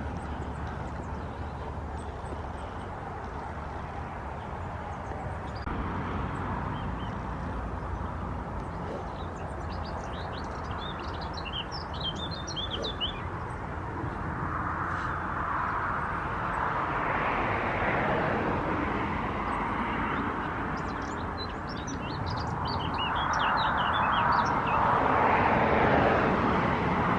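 Small birds chirping and twittering in two spells of rapid high calls, over a steady outdoor rushing noise that swells louder twice, the second time the loudest.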